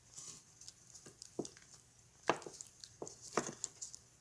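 Glue slime activated with laundry detergent being mixed and kneaded by hand: scattered wet, sticky clicks and squelches, with two louder ones about two and three and a half seconds in.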